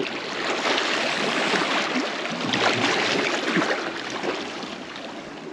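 Sea water lapping and splashing against shoreline rocks, a steady wash with a few sharper splashes in the middle that fades slightly near the end.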